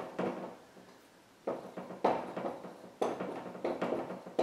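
Dry-erase marker writing on a whiteboard: a series of short strokes, with a pause about half a second to a second and a half in.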